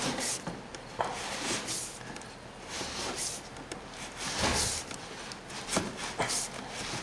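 Electrical cable being pulled by gloved hands and dragged against wooden framing: irregular scraping and rustling with a few light knocks.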